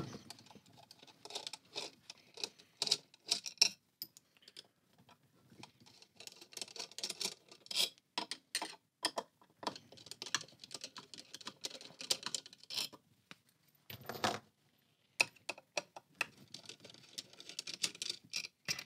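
Small screws and metal pump parts being handled: irregular clicks, ticks and scratches as the screws holding the pump head are taken out and set down and the head is worked loose by hand, with a longer scrape about fourteen seconds in.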